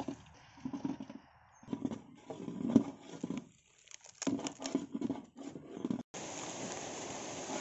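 Long metal ladle stirring and scraping chicken and spices in a large metal cooking pot: irregular scrapes and knocks. About six seconds in this gives way to a steady hiss.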